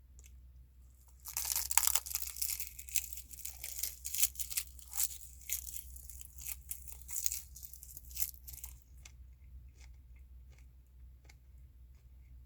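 Loud crinkling, tearing crunch close to the microphone for about eight seconds, starting about a second in. Then sparse soft clicks of chewing.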